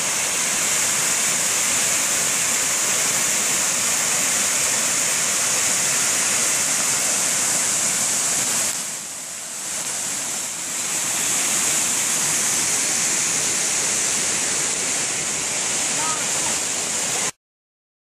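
Steady rushing roar of water pouring over a cascading waterfall. It dips a little for about two seconds near the middle, where the shot moves to the creek rapids below the falls. The sound cuts off abruptly just before the end.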